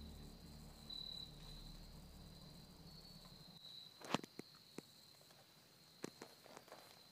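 Insects chirping in a steady high drone in swampy woodland. From about four seconds in, one sharp snap and then several lighter crackles, typical of footsteps on leaf litter and twigs.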